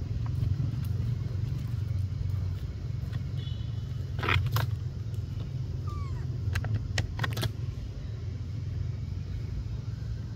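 A steady low rumble, with brief crackles of dry leaf litter about four seconds in and again around seven seconds, and a couple of faint short chirps.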